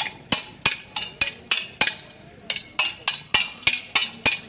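Swords and small round shields clashing in gatka sparring: a quick run of sharp metallic clinks, about three a second, with a brief pause about two seconds in.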